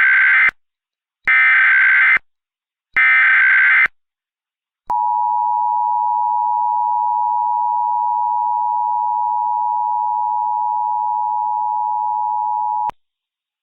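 Emergency Alert System tones: three harsh data bursts of the SAME header, about a second each, then the steady two-tone EAS attention signal held for about eight seconds before it cuts off.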